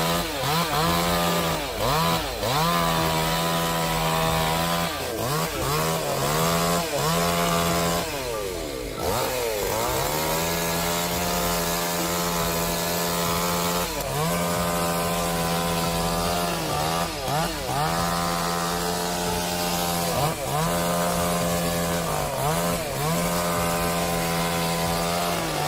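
Chainsaw engine running at high revs while cutting. Its steady pitch dips briefly and recovers about a dozen times, with one deeper sag about eight seconds in, as the chain is loaded in the wood.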